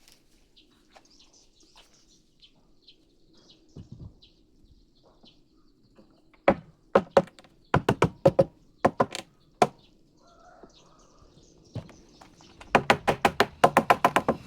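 Hammer blows on wood: a dozen or so ringing strikes over about three seconds, then after a pause a quick run of rapid strikes near the end. Birds chirp faintly in the background before the blows start.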